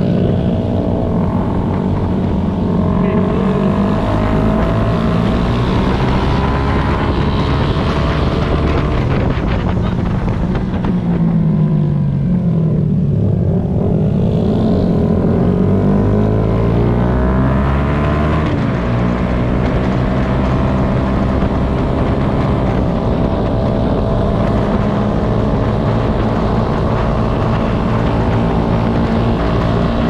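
Honda CBR250RR motorcycle engine running under way, with wind rushing over the camera microphone. About halfway through, the revs drop for a few seconds and then climb again.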